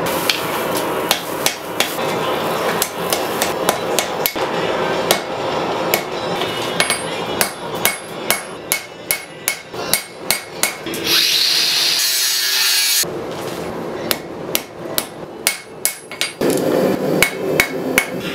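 Blacksmith's hand hammer striking red-hot steel of a seax blade on an anvil, in quick runs of sharp ringing blows. Roughly a second and a half of hissing about eleven seconds in.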